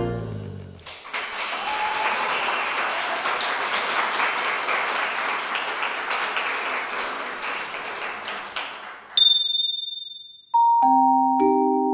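Audience applauding for about eight seconds as the band's last chord dies away. Then a single bright, high ping, and a gentle tune on a mallet instrument such as a vibraphone starts near the end.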